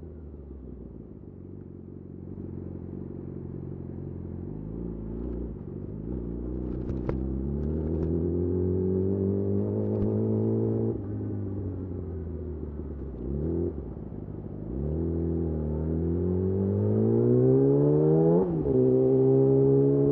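Yamaha YZF R6 inline-four through a de-catted Akrapovic slip-on exhaust, accelerating. The engine note climbs in pitch and gets louder, drops sharply at a gear change about halfway through, then climbs again, with another quick shift near the end.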